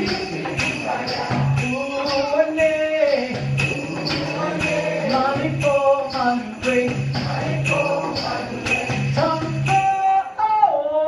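Live tango music: a steady jingling percussion beat under a wordless melody, which glides down onto a long held note near the end.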